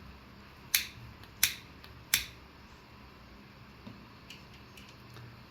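Hand lighter being clicked three times in quick succession, sharp clicks about two-thirds of a second apart, followed a couple of seconds later by a few faint ticks.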